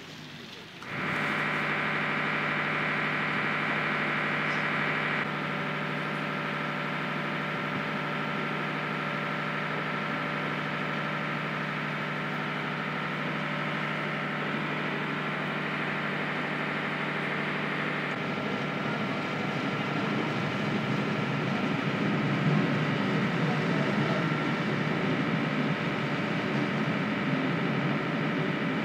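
Boat engine running steadily, heard on board a river passenger boat: a constant drone made of several steady tones. The tone shifts abruptly about 5 and 18 seconds in, and the last part is a rougher, noisier low rumble.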